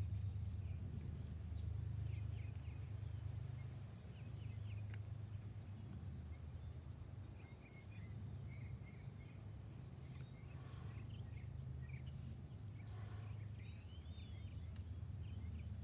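Low steady background rumble with faint, scattered bird chirps, and a single light click about five seconds in.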